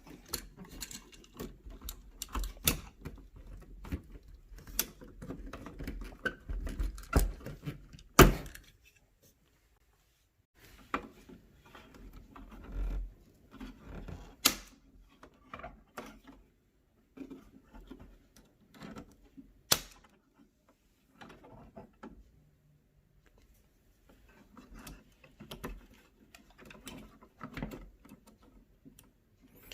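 Small clicks, knocks and rustling from working on wiring at a wall switch: a small screwdriver releases the old switch's push-in wire connections and the wires are pulled free and handled. A few sharp clicks stand out, several seconds apart.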